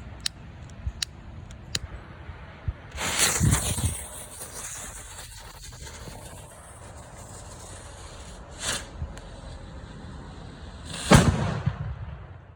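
Firecrackers going off: three small pops in the first two seconds, a loud bang about three seconds in, another near nine seconds, and the loudest bang about eleven seconds in, fading out over a second.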